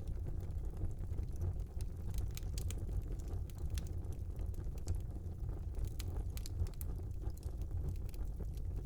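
Wood fire burning in a small fireplace: a steady low rumble of flames with irregular sharp crackles and pops from the burning wood.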